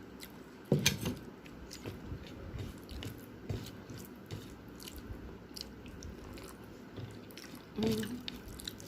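Close-miked chewing and wet mouth sounds of someone eating rice with fish curry by hand: soft smacks and small clicks throughout, with a louder bite about a second in.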